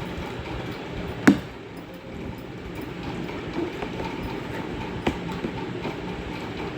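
Steady rumbling background noise, with a sharp knock about a second in and a softer one near the end.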